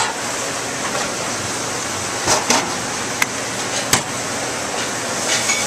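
Steady background noise of a busy restaurant kitchen, with two sharp clinks about three and four seconds in.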